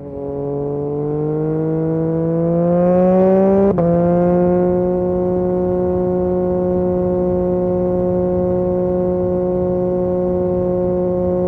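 Yamaha MT-09 SP's 890 cc inline-three engine through an Akrapovic exhaust, rising in revs under acceleration for nearly four seconds. A quick upshift follows with a short click and a slight dip in pitch, then the engine runs at steady revs.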